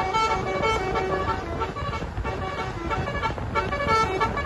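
A bus's telolet basuri musical air horn playing a quick melody of short notes that step up and down in pitch, over the low rumble of the bus.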